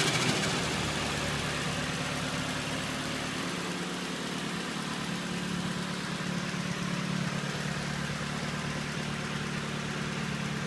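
Turbocharged Nissan Pulsar ET engine dropping off a rev in the first moment, then idling steadily.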